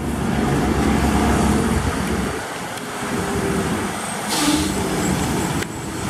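Volkswagen Constellation semi-truck driving past on a wet road: its diesel engine rumbles under a steady hiss of tyres on wet asphalt. A short hiss comes about four and a half seconds in.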